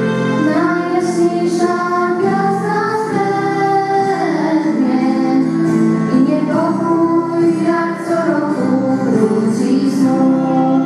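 A girl singing a melody into a microphone, with music accompanying her.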